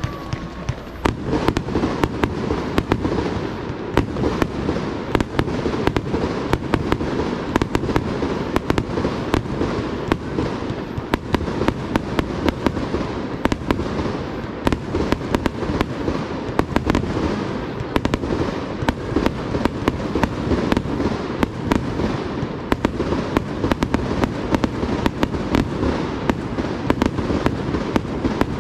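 Aerial fireworks going off in a dense, continuous barrage: several sharp bangs a second, one on top of the next, over a constant low rumble of booms.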